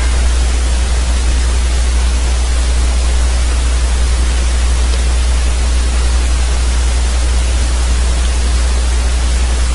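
Steady hiss over a constant low hum, the noise floor of the recording microphone and its electrical hum, unchanging throughout.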